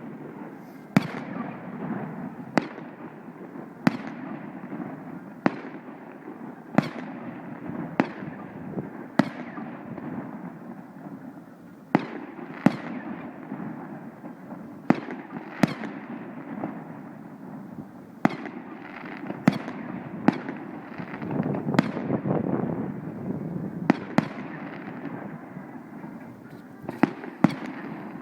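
Fireworks display: shells bursting one after another, a sharp bang every second or so, each followed by a rolling echo, with a denser rumbling stretch about three-quarters of the way through.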